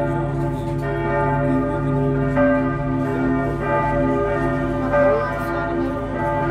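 Church bells pealing from the tower: several bells swinging together, their ringing tones overlapping, with fresh strokes every second or so.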